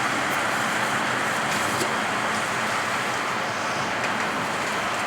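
Steady rushing of water flowing into a newly installed gas water heater's tank as it fills.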